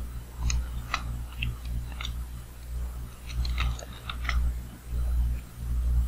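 Computer keyboard keys clicking in short scattered runs, with a cluster of keystrokes a little past the middle, over a low background hum that swells and fades.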